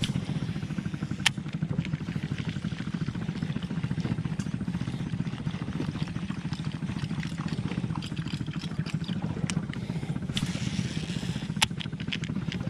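Small boat engine running steadily, with a fast, even pulse, and a few light knocks.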